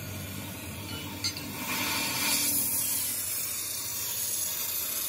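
Oxy-fuel torch flame hissing while it heats a steel axle shaft, growing louder for about two seconds near the middle. A single short click about a second in.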